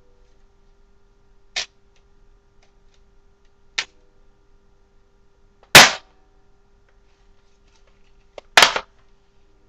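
Airsoft M16 replica firing single shots: four sharp snaps roughly two seconds apart, the third the loudest.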